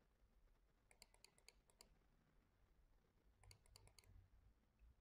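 Faint clicking of computer controls being worked: four spaced clicks about a second in, then a quick cluster of clicks around three and a half to four seconds in.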